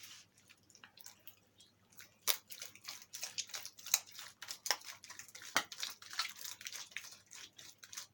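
Jelly slime with toothpaste mixed in being kneaded by hand: irregular wet squelches and sticky clicks, sparse at first and busier from about two seconds in.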